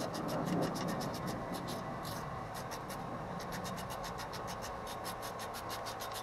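Ratchet wrench clicking in quick, even runs as it backs out a loosened 18 mm bolt from the front strut's lower mount.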